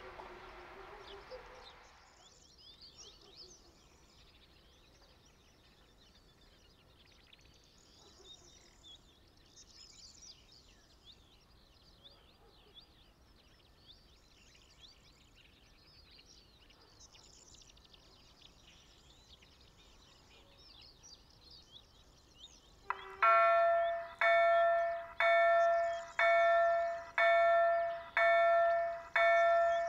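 Faint birdsong, then about three-quarters of the way in a level-crossing warning bell starts ringing, striking loudly about once a second, about seven times. The signals have activated: a train is approaching and the barriers are about to come down.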